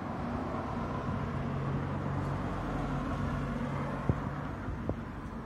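A motor vehicle's engine running nearby: a steady low hum that swells through the middle and fades out, with a couple of light clicks near the end.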